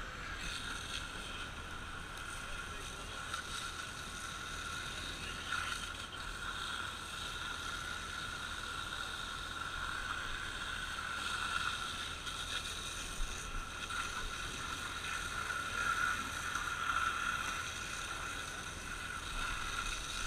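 Fire engine tanker running at the scene with its pump working to supply a hose line: a steady mechanical drone with a high, even whine, growing a little louder past the middle.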